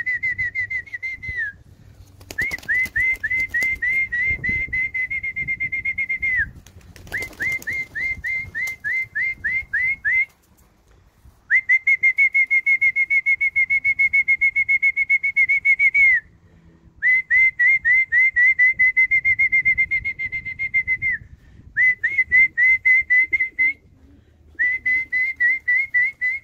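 A person whistling a rapid string of short, high notes, each rising quickly at its start, about four a second, in runs of a few seconds with short breaks: a pigeon fancier's call whistle to bring a returning racing pigeon down to the loft.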